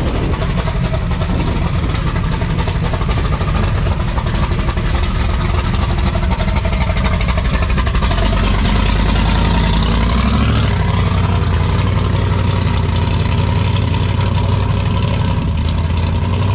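A car engine running loud with its exhaust pulsing steadily. Its pitch rises a little about ten seconds in and holds there, as if the engine is brought up from idle.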